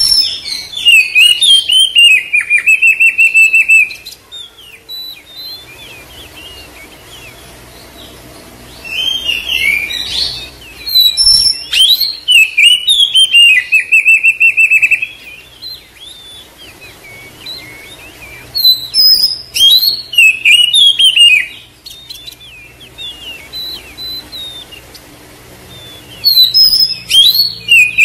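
Oriental magpie-robin song in four bouts of a few seconds each. Each bout is a run of varied high whistled notes, and two of them end in fast buzzing trills, with quieter gaps between the bouts.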